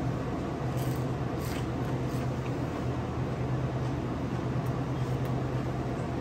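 Steady low machine hum over an even rushing noise, with a few faint clicks about one and one and a half seconds in.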